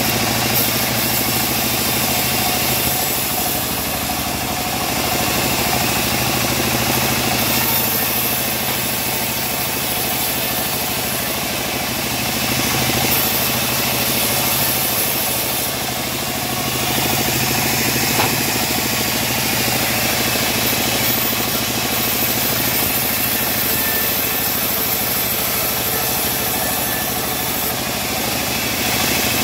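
Homemade bandsaw mill running steadily, a constant machine drone with the band blade ripping teak into boards; the sound swells and eases a little as pieces are fed through the cut.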